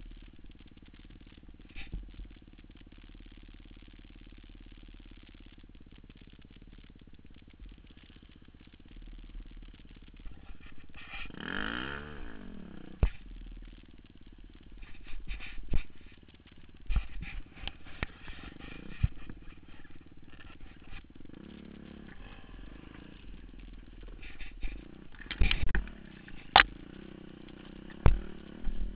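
Enduro motorcycle engine heard from on the bike, running steadily at low revs, with one brief rev up and back down about twelve seconds in. Scattered sharp knocks and clatter, the loudest near the end.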